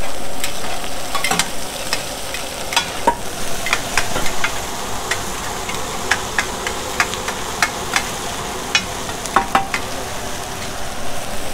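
Noodles, bean sprouts and egg sizzling in oil in a large shallow pan and on a flat griddle, with metal spatulas scraping and clinking against the hot metal again and again.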